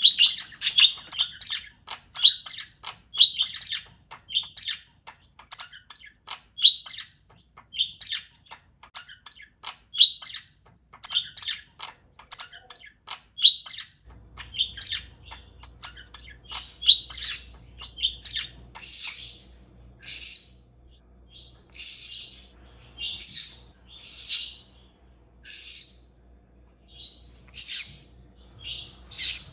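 Pet parakeet chirping: short high chirps about once a second, turning into louder, fuller calls roughly every second and a half in the second half.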